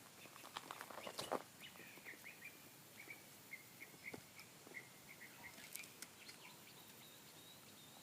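A small bird chirping faintly, short repeated chirps at a steady pitch through most of the time, with a few light clicks and taps in the first second or so.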